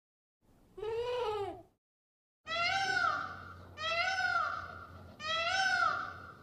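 A goat bleats once, about a second in. Then a peacock calls three times, each call a rising-then-falling wail about a second long, at intervals of about a second and a half.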